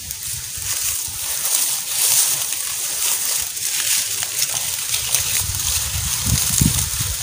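Dry bamboo leaves and sticks rustling and crackling under hands as the sticks are laid out on the leaf litter, a dense run of small crisp ticks.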